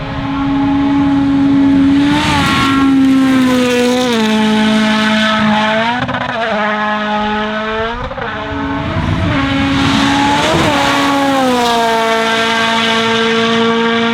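Toyota Yaris WRC rally car's 1.6-litre turbocharged four-cylinder engine running hard at high revs. Its pitch holds fairly steady, dips briefly several times and glides down to a lower steady pitch near the end.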